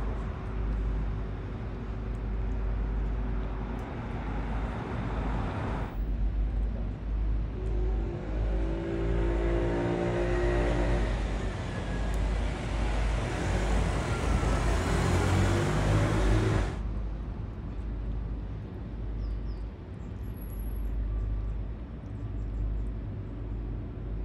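Motor traffic: a steady low rumble, with a vehicle's engine growing louder about a quarter of the way in and cutting off suddenly about two-thirds of the way through.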